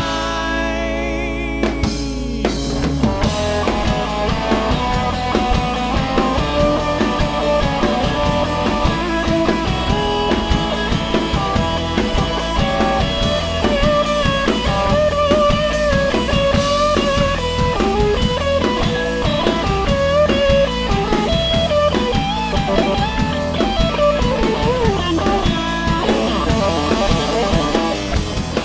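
Rock band playing an instrumental passage with no vocals: a held chord for the first couple of seconds, then the drum kit comes in with a steady beat under guitars and a lead melody that bends in pitch.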